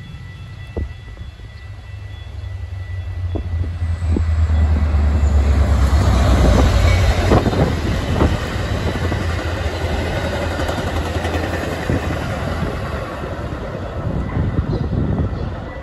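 Metra commuter train passing: the diesel locomotive's engine drone builds and peaks about four to eight seconds in. Bilevel coaches follow, rolling by with intermittent wheel clicks over the rails, and the sound fades as the last car goes by near the end.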